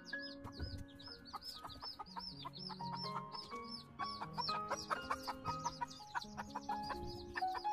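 A brood of baby chicks peeping over and over, quick high cheeps several a second, over background music with held notes.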